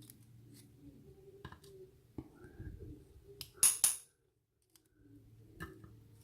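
Small metallic clicks and taps of lock pins and springs being handled as they are taken out of the lock, with the loudest, a sharp double click, about three and a half seconds in.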